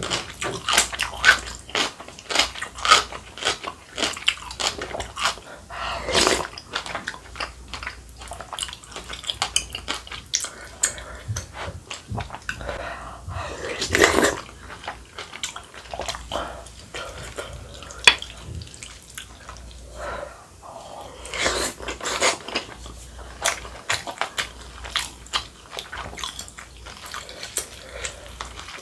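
Close-miked eating: wet chewing and sipping of dumpling rice-cake soup from a spoon, full of small clicks and smacks, with a few longer slurps, the loudest about halfway through.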